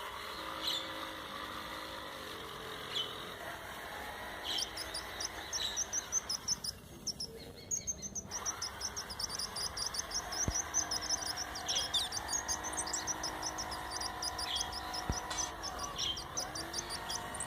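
Small birds chirping, with a fast string of high chirps through the middle, over fainter tones that slide slowly up and down.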